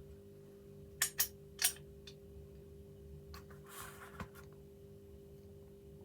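Small metal parts of a sash lock clicking as they are handled and fitted back together: three sharp clicks about a second in, then a short scrape and a faint tick near the middle, over a steady low hum.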